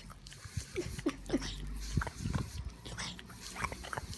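A pug giving three short whimpers about a second in, among snuffling and small clicking sounds.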